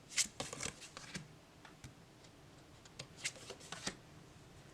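Tarot cards being handled: light slides and taps of card against card, in a cluster of strokes in the first second and another about three seconds in.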